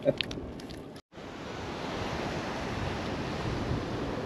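Steady rush of sea surf and wind, after the sound cuts out briefly about a second in.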